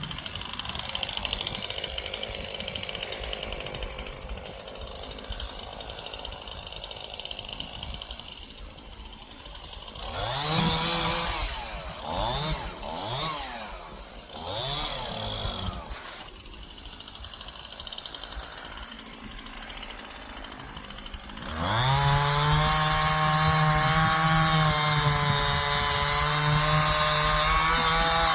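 Stihl chainsaw running at low speed, revved up and down several times, then held at full throttle for several seconds, cutting through storm-felled trees.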